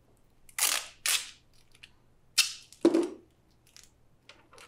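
Four short, sharp noises: two hissing scrapes about half a second apart near the start, then two sharp knocks or clacks close together a little past the middle.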